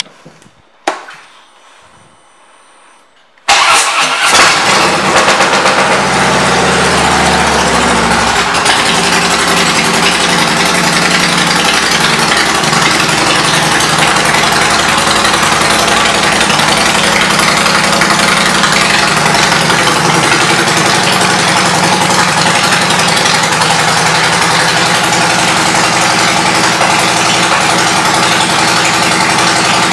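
A Harley-Davidson Heritage Softail Classic's V-twin (Twin Cam 103B) with Vance & Hines aftermarket pipes starts about three and a half seconds in. It runs heavier for a few seconds, then settles into a steady idle.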